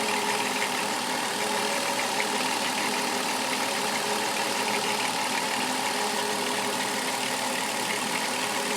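Chrysler Town and Country's 3.3-litre V6 engine idling steadily with a rattling noise.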